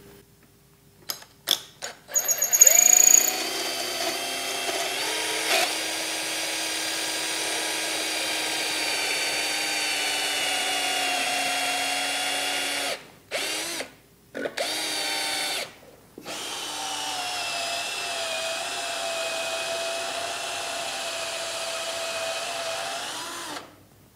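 Cordless drill with a step bit boring out the centre hole of a pedal-assist sensor magnet disc clamped in a vise. After a few clicks it runs steadily for about ten seconds, stops with a couple of short bursts, then runs steadily again for about seven seconds.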